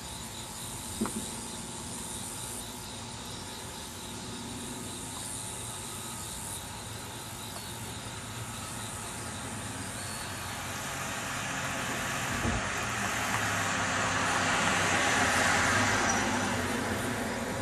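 A road vehicle driving past: its tyre and engine noise builds over several seconds, is loudest near the end, then begins to fade. A short click comes about a second in.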